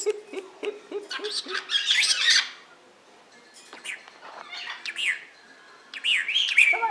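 Pet birds calling: a run of short, evenly repeated calls, then a dense burst of calls about two seconds in. After a brief lull, loud calls sweep up and down in pitch near the end.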